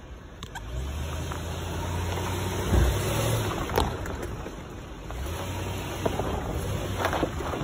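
Toyota Sequoia driving over a rocky dirt trail: a low engine rumble that builds about a second in, eases around the middle and picks up again, with tyres crunching over dirt and stones and a couple of sharp knocks.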